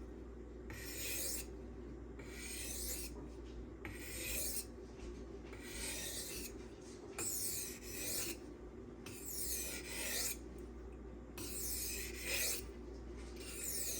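M390 steel knife blade stroked back and forth on a silicon carbide sharpening stone, a rhythmic gritty scraping with a stroke about every one to two seconds.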